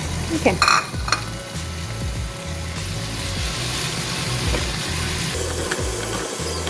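Onions, ginger-garlic paste and freshly added tomato sizzling in a pan while being stirred, a steady frying hiss, with a sharp clink of the utensil against the pan just under a second in.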